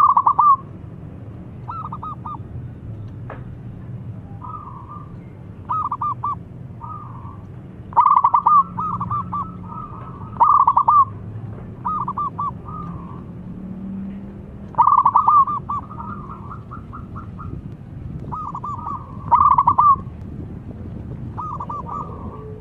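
Zebra dove (perkutut) cooing: short phrases of quick, staccato coo notes repeated every second or two, some phrases much louder than others.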